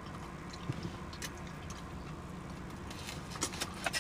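Quiet chewing of food, with a few short wet smacking clicks from the mouth, over a low steady background hum.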